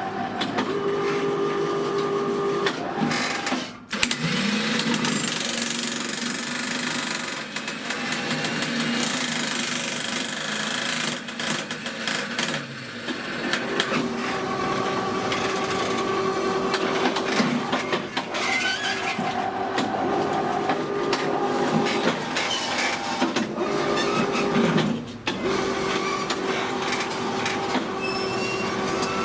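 Homemade electric power shovel working with a jackhammer attachment: dense, rapid mechanical hammering over a steady motor hum. It breaks off briefly about four seconds in and again a few seconds before the end.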